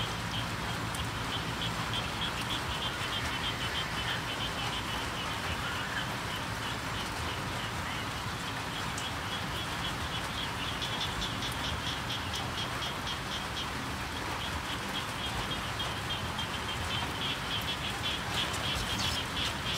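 Chopped chili and tomato sizzling in a hot steel wok while a metal spoon stirs it. Behind it runs a steady rhythmic high chirping, about three pulses a second.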